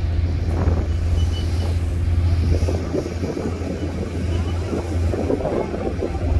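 Car ferry's engines running under way, a low steady hum, with wind buffeting the microphone on the open deck.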